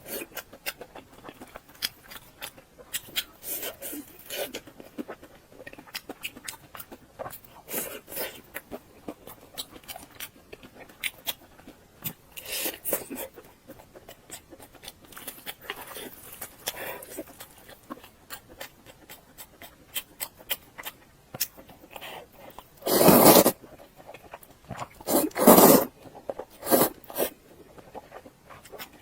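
Close-miked eating: chewing and wet mouth clicks go on throughout. Louder noisy bursts come about twenty-three and twenty-six seconds in.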